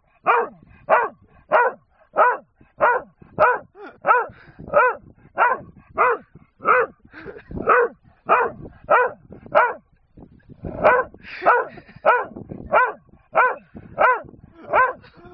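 A dog barking over and over at a steady pace, about three barks every two seconds, with a short break about ten seconds in. It is demand barking: the dog wants a wooden gun the man has.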